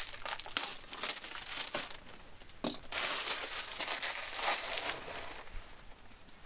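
Paper rustling and soft knocks as books are lifted, shifted on a pile and their pages leafed through, in irregular bursts with small clicks.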